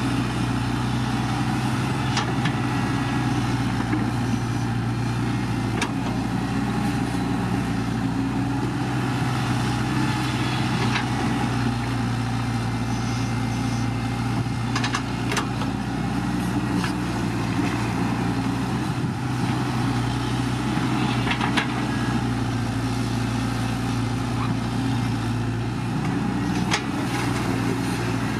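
Heavy diesel engine of earthmoving machinery running steadily with a low, even drone. A few short, sharp knocks stand out now and then.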